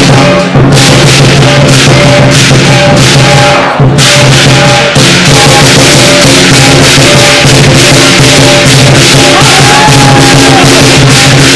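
Lion dance percussion: a big drum with clashing cymbals and a gong, playing a fast steady beat of about three to four strokes a second, very loud. The cymbals drop out briefly near the start and again about four seconds in.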